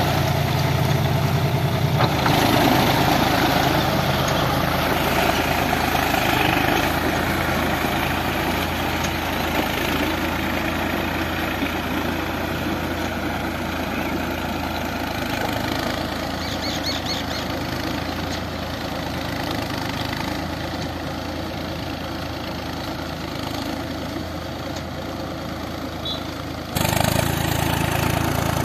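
Farm tractor's diesel engine running steadily under load as its iron cage wheels churn through a flooded, muddy paddy field. The sound shifts abruptly about two seconds in and again near the end.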